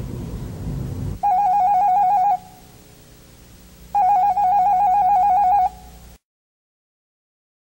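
Landline telephone ringing with an electronic warbling trill: two rings, the second longer, after a low rumble in the first second. The sound then cuts off to dead silence.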